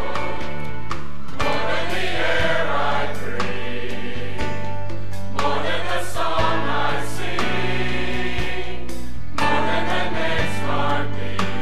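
Mixed church choir of men and women singing in phrases, conducted, over sustained low accompaniment notes.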